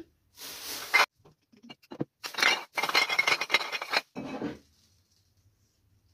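Household items being handled and rummaged through: bursts of rustling with sharp clicks and glass clinks. The longest burst runs from about two to four seconds in, and it goes quiet soon after.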